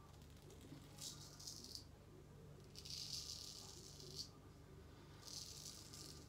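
Swedish C.V. Heljestrand straight razor scraping through lathered stubble: three faint, crackling strokes, each about a second long, with short pauses between them.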